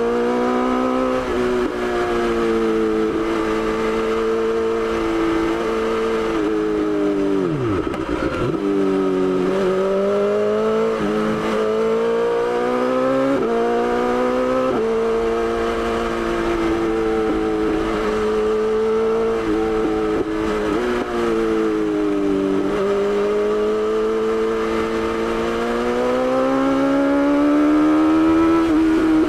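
BMW S1000XR motorcycle's inline-four engine running under way, its pitch rising and falling with the throttle and jumping abruptly a few times. It climbs steadily and gets louder near the end as the bike accelerates.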